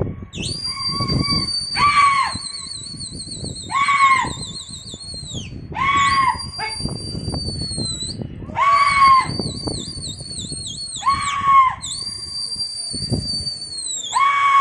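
Pigeon fanciers calling to a circling flock: long, shrill, held whistles, several of them warbling in a quick trill, over short high-pitched shouts repeated about every two seconds.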